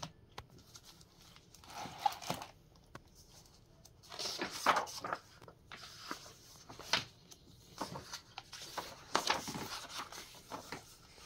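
Stiff paper pages and the cover of a hardcover picture book being opened and turned by hand: several papery swishes and rustles a second or two apart.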